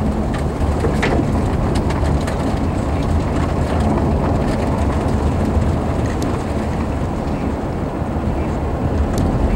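Steady rumble of a car's tyres and engine heard inside the cabin while driving, with a faint steady hum and a few light clicks.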